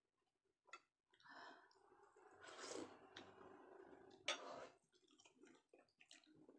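Faint eating sounds: soft chewing and breathing, with a sharp click about four seconds in and lighter clicks after, as a spoon and bowl touch the dishes.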